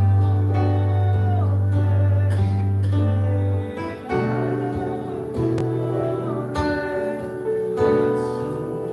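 Instrumental background worship music: slow held chords over a sustained bass note, the harmony changing about four seconds in and a few more times after.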